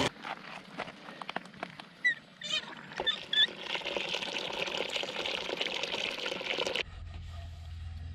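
Water running from an outdoor frost-free hydrant spigot into a plastic collapsible dish basin, a steady pouring splash as the basin fills for washing dishes. It cuts off suddenly near the end.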